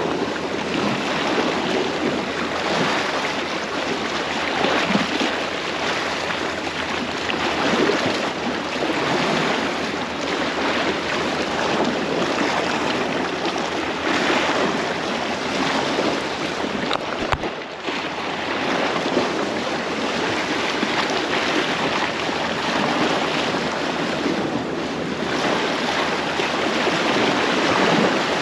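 Sea surf washing against a rocky shore, a steady rushing that swells and ebbs, with wind buffeting the microphone.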